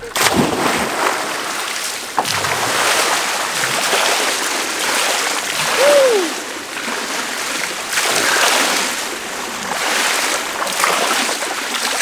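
A person jumping into a swimming pool with a sudden splash, followed by the pool water sloshing and lapping in swells every couple of seconds as he moves about in it.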